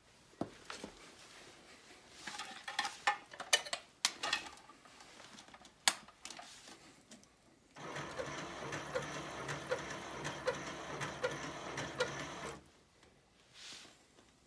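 Clicks and knocks of wiring being handled and connected. Then the Code 3 MX7000 lightbar's rotator motors run with a steady whir for about five seconds, a light click repeating roughly every three-quarters of a second, before cutting off.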